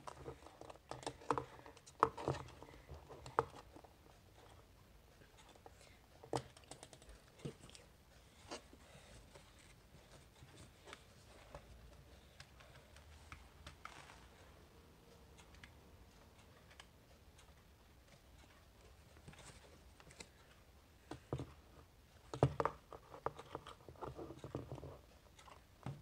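Plastic quartz wall clock being handled while its hands are set back: a cluster of clicks, knocks and scrapes at the start and another near the end, with scattered faint clicks in between.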